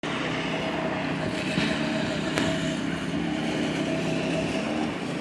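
Small petrol engine of a kid's mini bike running as it rides, its speed shifting slightly up and down, with a brief click about two seconds in.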